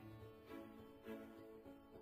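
Soft, slow background music, with held notes that change about every half second.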